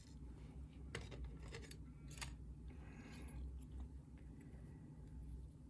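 Faint small metallic clicks and a light scratchy rattle of lock pins and springs being handled while a pin-tumbler lock is gutted.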